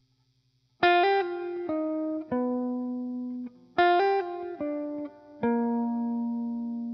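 Background music: a plucked-string melody of notes that each ring out and fade, starting about a second in, with the same short phrase played twice.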